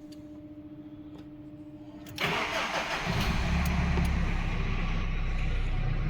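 A Subaru car engine being started: about two seconds in the starter cranks, the engine catches about a second later and then runs steadily at idle.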